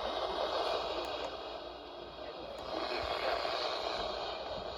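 Steady radio static hiss from a weak emergency-alert broadcast, with the voice reading the marine warning faint beneath it.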